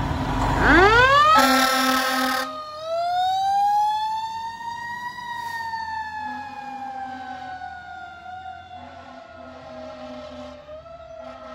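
A 2014 Pierce Arrow XT fire engine's Federal Q mechanical siren winding up from low to a high wail, with a burst of air horn blasts about a second and a half in. The siren then slowly winds down and fades as the truck pulls away, rising again near the end.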